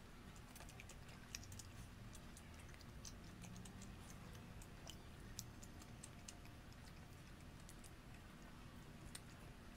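Faint, irregular small clicks and crackles of shrimp shells being peeled by hand and chewed, over a low room hum.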